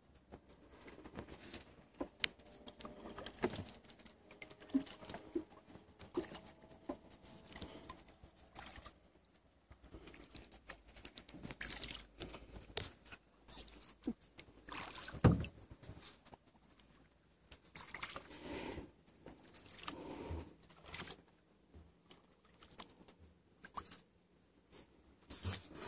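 Kayak paddles dipping into calm river water: irregular splashes and drips with short pauses between strokes, and one sharp, louder hit about fifteen seconds in.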